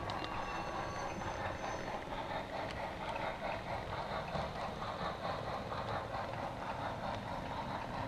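HO-scale model train rolling along the track, heard through a camera riding on the flatcar: a steady whirring rattle with a fast, even flutter.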